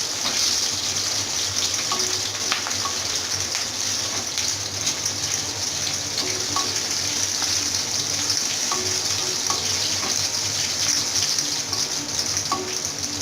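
Chopped garlic, onion and green chillies frying in hot oil for a bagar (tempering): a steady sizzle with small scattered pops, the tempering browning toward red.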